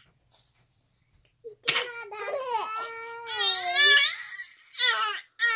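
Young baby cooing and laughing: a few drawn-out, high-pitched, gliding squeals starting about a second and a half in, with another just before the end.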